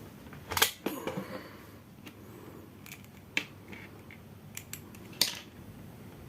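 Scattered sharp clicks and handling noise, the loudest about half a second in and another strong one about five seconds in, as a microwave oven high-voltage diode is handled and clipped into a series-lamp test rig.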